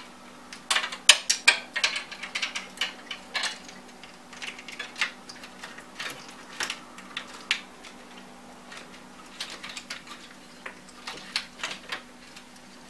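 Irregular clicks and light knocks of a twin-fan computer radiator being handled and shifted against the inside of a PC case as it is fitted into place, over a faint steady hum.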